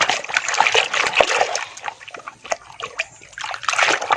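Water splashing and sloshing in irregular bursts as muddy toy trucks are washed by hand, with a quieter stretch in the middle.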